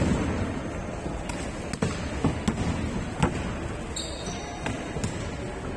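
A basketball bouncing on a court: several sharp, irregularly spaced thuds over a steady din of background noise.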